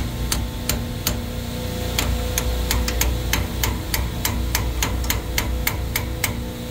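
Hand ratchet wrench clicking as it backs a bolt out of a liquid pressure regulator valve's cap, about three to four sharp clicks a second with a short pause near the start, over a steady machinery hum.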